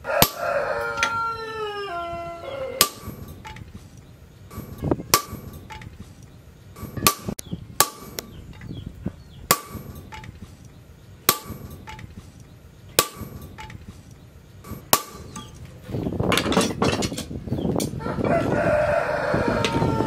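A rooster crows, one long call falling in pitch at the start, then crows again near the end. In between, sharp metallic knocks with a short ring come about every two seconds.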